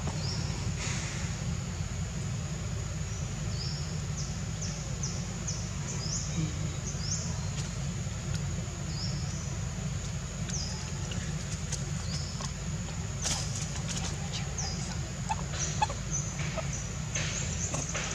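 Outdoor ambience: a steady high-pitched buzz with many short, high chirps scattered through it, over a low steady rumble. A few soft rustles near the end.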